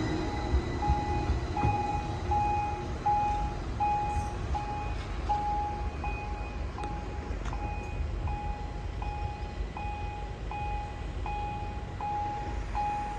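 Pedestrian level crossing warning signal: an electronic beep sounding about four times every three seconds, each tone held just over half a second with short gaps, over a low background rumble.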